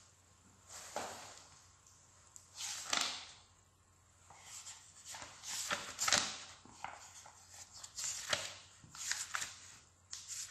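Pages of a hardcover textbook being opened and flipped by hand: a string of short papery swishes and rustles, the loudest about six seconds in.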